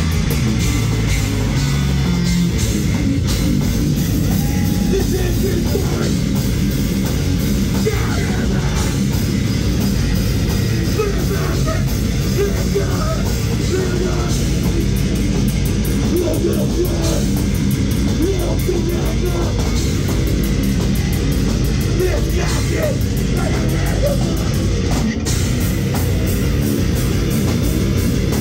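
Grindcore band playing live, loud and dense: distorted electric guitar and fast drums, with a vocalist shouting into the microphone.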